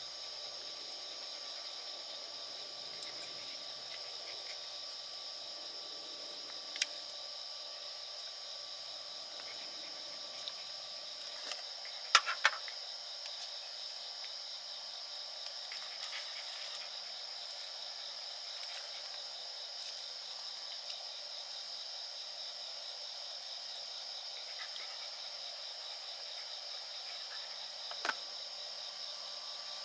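Steady chorus of insects chirring in several high-pitched layers, with a fast pulsing in the highest one. A few sharp clicks cut through: one about a quarter of the way in, a louder close pair near the middle, and one near the end.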